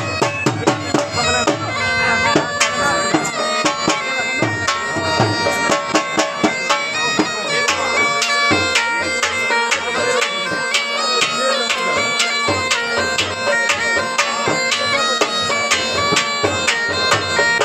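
A dhol drum beaten with sticks in a fast, driving jhumar rhythm, with a bagpipe (been) playing a melody over a steady drone.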